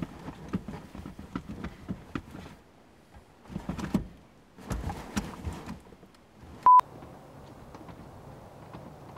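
Ticking inside a car, about three ticks a second, stopping after two and a half seconds; then a few clusters of knocks, and a short, loud electronic beep at one pitch about two-thirds of the way in, followed by a low, even background hiss.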